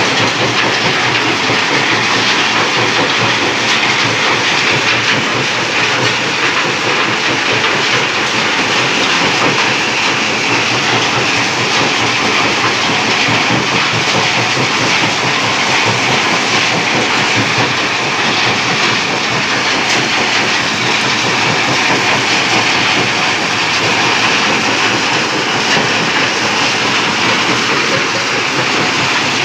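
Stone-crushing plant running: jaw crushers breaking rock as it is fed in, a steady, dense clatter and rattle of stone with the machinery's hum underneath.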